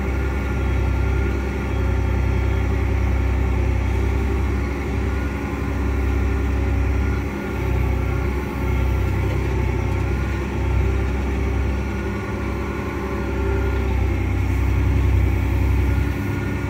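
Versatile 365 tractor's Cummins diesel engine running steadily under way, heard from inside the cab as a deep, even drone.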